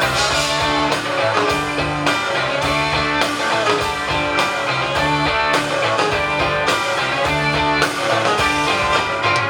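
Live rock band playing an instrumental passage between vocal lines: electric guitars over bass and a steady drum beat.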